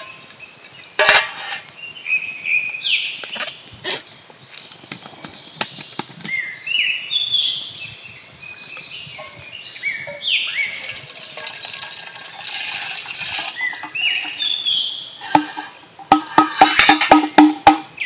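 A sharp metal clink on a stainless steel cup, then liquid poured from a plastic shaker bottle into the cup, gurgling in quick rising chirps. Near the end a fast run of clicks begins.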